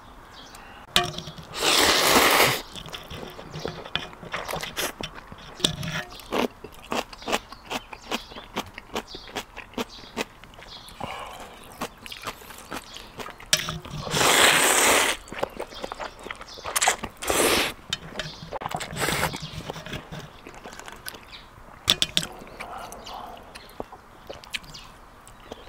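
A person slurping instant ramen noodles, with two long slurps about two seconds in and about fourteen seconds in and shorter ones around seventeen and nineteen seconds, and chewing and small clicks and scrapes in between.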